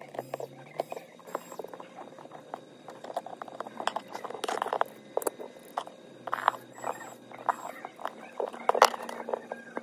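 Irregular small clicks, taps and scrapes of a precision screwdriver and fingers working on the screws and metal connector bracket inside an opened iPhone 8 Plus, with a longer scratchy stretch about halfway and a sharper click near the end.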